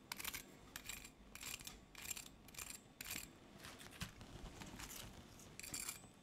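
Crisp breaded crust of a deep-fried chicken strip crackling faintly as a fork scrapes and breaks into it, in short irregular crackles a few times a second, thinning out a little past the middle. The crackle is the sign of a dry, crunchy coating.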